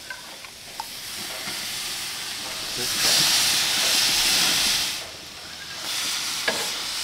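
Marinated vermilion snapper fillets sizzling on the hot grates of a gas grill. The sizzle swells louder for about two seconds from about three seconds in, while a metal spatula presses on the fish, and a few faint clicks come through.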